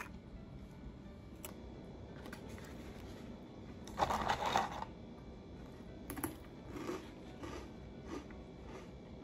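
Someone eating crunchy Jagarico potato sticks. There is one louder bite about four seconds in, then a run of short crunches about one and a half a second as they are chewed.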